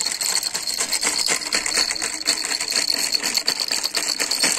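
A plastic pen holder full of pens being shaken by hand, rattling in a fast, dense clatter, over a steady high-pitched whine.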